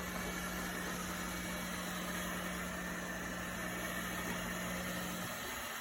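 Robot vacuum running with a steady motor hum and whir, the hum cutting out shortly before the end.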